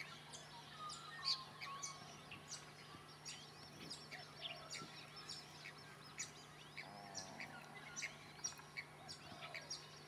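Faint wetland bird calls: many small birds giving short chirps and quick whistled notes, with a brief lower call about seven seconds in, over a steady low hum.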